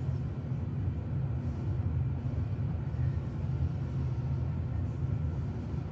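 A steady low rumble of background noise, with no distinct sounds over it.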